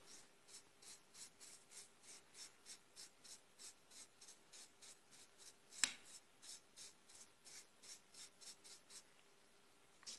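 Faint, even strokes of a brush scrubbing a freshly CNC-carved wooden plaque, about three a second, clearing the fuzz and burrs left by the cutter. One sharper click comes about six seconds in, and the strokes stop shortly before the end.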